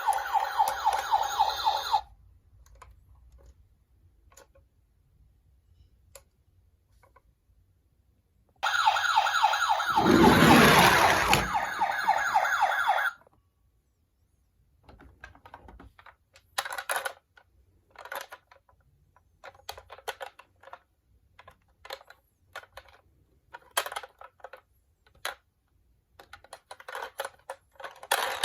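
Electronic siren of a toy emergency-vehicle minicar, sounding and cutting off suddenly about two seconds in, then sounding again for about four seconds in the middle with a low rumble beneath it. In between and through the second half come short plastic clicks and rattles of the toy cars being handled.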